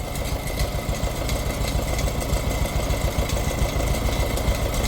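Old Case 580CK backhoe's engine idling steadily at low throttle.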